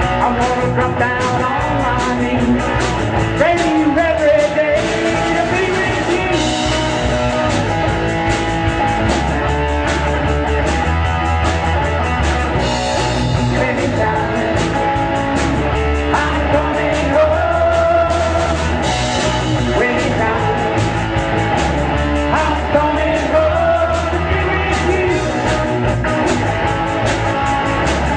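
A rock band playing a song: a sung lead vocal over guitar, bass and drums with a steady beat.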